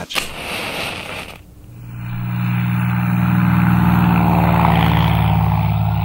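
A struck match hissing as it burns, cut off after about a second and a half. Then a single-engine propeller light aircraft's engine drone swells up and holds steady as the plane passes close.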